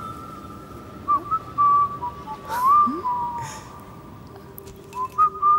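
Whistling: long, mostly level notes that slide up and down a little, with a fainter low steady tone joining about four and a half seconds in.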